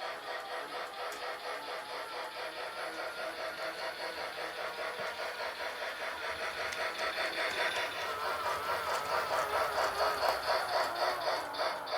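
Lionel Penn Flyer battery-powered G-gauge toy steam locomotive running around its track, with its built-in steam chuffing sound and a running rattle, several chuffs a second, growing louder near the end.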